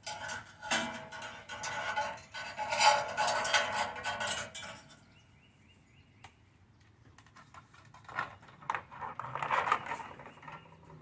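Clinking and clattering of hard objects being handled: a busy stretch over the first five seconds, then a shorter burst near the end.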